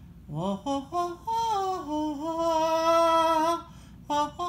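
A woman's vocal warm-up: a quick upward slide, then a long held note that dips in pitch and comes back up before stopping, with a short new note starting near the end.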